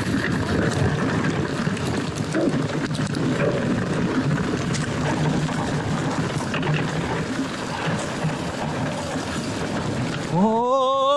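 Commencal Meta TR mountain bike descending a loose dirt and stone trail: a steady rolling rumble from the tyres on the ground, with the bike rattling over the rough surface. Near the end a rider lets out a long, rising, wavering shout.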